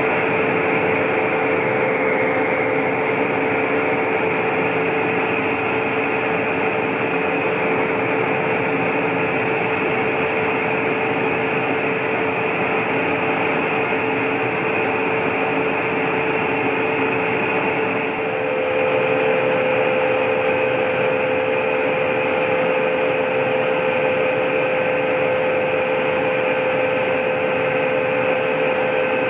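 Drive machinery of a 2014 Doppelmayr/Garaventa aerial tramway running in its station machine room: a loud, steady mechanical whir with a steady whine. A second, slightly higher whine joins in about two thirds of the way through, and the sound gets a little louder.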